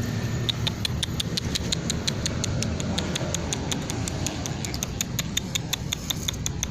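Rapid, irregular clicking of dry cat food, several sharp clicks a second, over a steady low background rumble.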